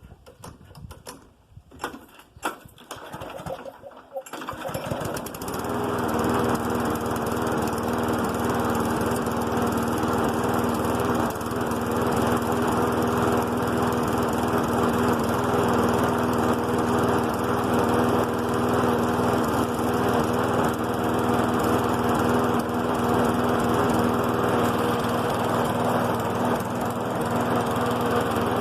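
Briggs & Stratton 675EX single-cylinder engine on a Husqvarna LC 153S lawn mower starting from cold: a few seconds of scattered clicks and knocks, then it catches about four seconds in, rises quickly and settles into a steady run.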